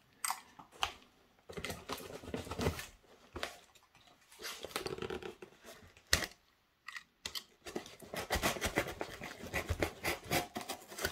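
Packing tape being picked at and torn on a cardboard shipping box, with scratches and short tearing sounds. From about eight seconds in, a utility knife scrapes and cuts along the taped seam in quick strokes.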